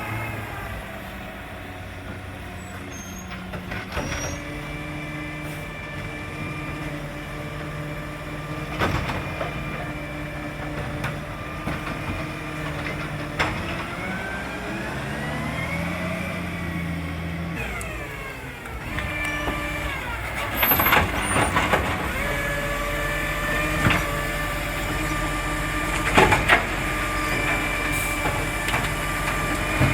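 Garbage truck's diesel engine running, its pitch rising and falling several times as it revs, with its exhaust leak repaired. Several sharp knocks are heard along the way.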